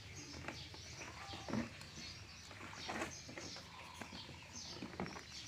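Small birds chirping faintly: many short, high calls that fall in pitch, with a few soft knocks and rustles.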